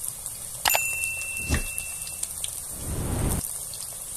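Breaded chicken strips deep-frying in hot oil: a steady sizzle with small crackles. Under a second in there is a sharp click followed by a thin ringing tone, and around three seconds in a brief low rumble.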